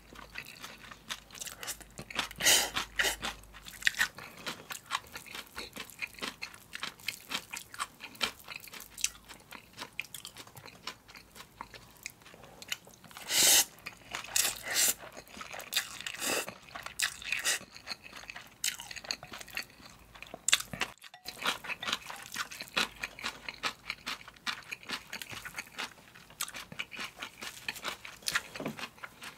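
Close-miked eating of spicy cold bibim noodles with aged kimchi: steady wet chewing with crisp crunches, broken by a few loud slurps of noodles, the longest about halfway through.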